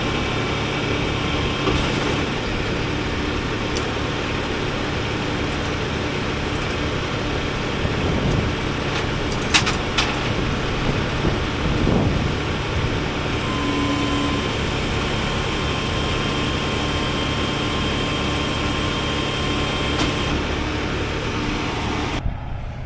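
Diesel engine of a 6x6 rollback tow truck idling steadily, with a few sharp clicks and knocks about ten seconds in and a faint steady whine through the middle.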